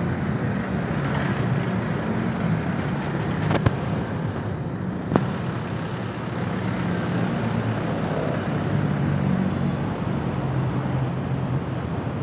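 City street traffic: steady engine and tyre noise from passing cars, vans and trucks, with two sharp clicks a second and a half apart a few seconds in.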